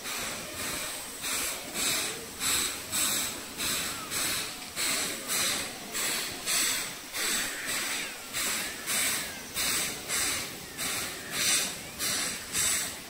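Cicadas calling in a steady rhythm of hissing pulses, a little under two a second, high-pitched and with little low sound.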